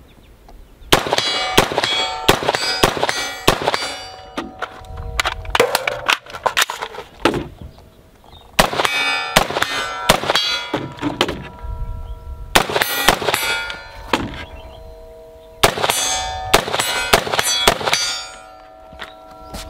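AR-15 rifle fired in about five rapid strings of shots, the hits ringing steel targets, which keep ringing in the pauses between strings. The rifle is cycling reliably, without a malfunction.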